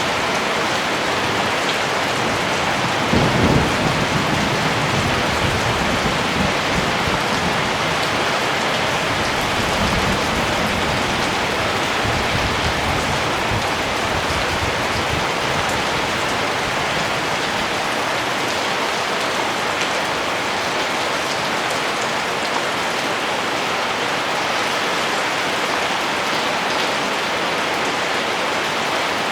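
Steady rain falling as an even hiss, with a low rumble of thunder about three seconds in and fainter rumbles around ten and thirteen seconds.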